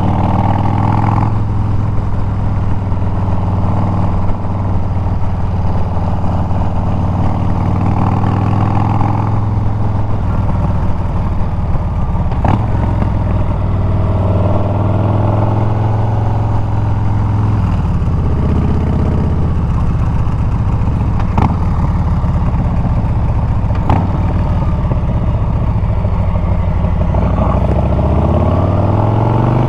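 Harley-Davidson Milwaukee-Eight 114 V-twin running through Bassani straight pipes while cruising, with a steady exhaust note. There are a few short knocks, and the pitch rises near the end as it accelerates.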